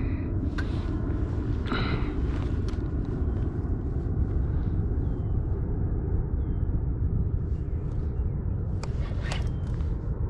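Steady low rumble of wind buffeting the microphone. A few short knocks come through it about half a second and two seconds in, and twice more close together near the end.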